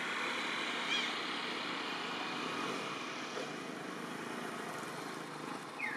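Steady outdoor background noise, like distant traffic, with a brief high chirp about a second in and a short falling call near the end.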